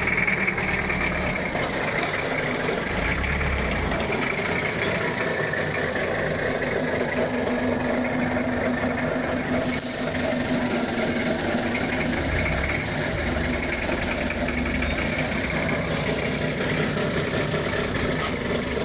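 Diesel engine running steadily with an abnormal engine noise, which the owner puts down to badly adjusted valves or injectors.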